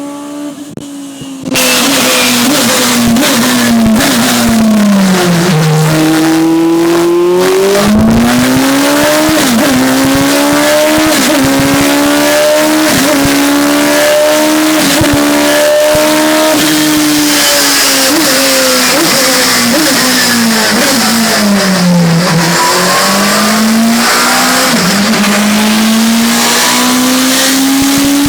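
Radical SR3's 1500 engine running hard, cutting in loud about a second and a half in. Its revs fall away twice and climb again, with short quick dips in between like gear changes.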